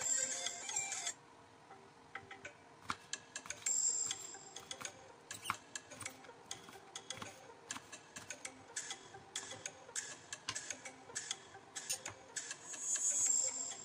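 Kitchen knife slicing bitter melon on a wooden cutting board: a run of irregular quick taps as the blade meets the board, with a louder scrape near the end as the slices are moved onto a plate. Background music cuts off about a second in.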